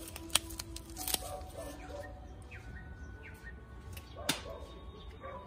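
Three sharp clicks, near the start, about a second in and about four seconds in, over faint short bird chirps.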